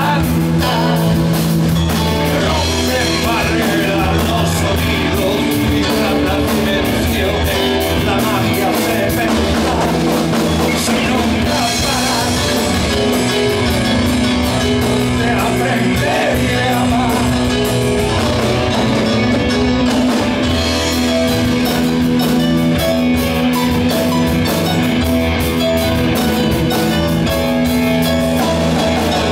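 A progressive rock band playing live and loud, with held synthesizer-keyboard chords over a drum kit and a man singing.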